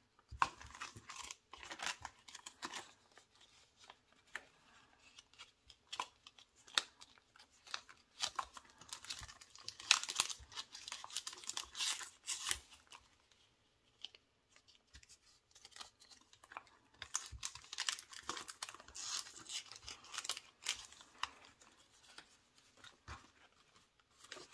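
Paper bills and a savings-challenge envelope being handled, rustling and crinkling in irregular bursts with small clicks as cash is counted out and stuffed into the challenge's pockets. There is a quieter gap a little past halfway.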